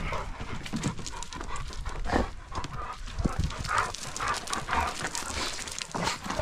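A dog panting, with scattered short clicks and rustles.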